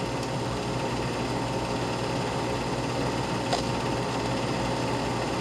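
Film projector running steadily, with a low hum underneath and one small click about three and a half seconds in.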